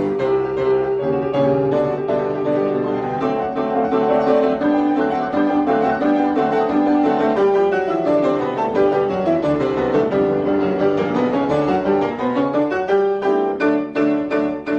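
Lively solo piano music, quick notes in steady succession, with a run that slides down and then climbs back up about halfway through.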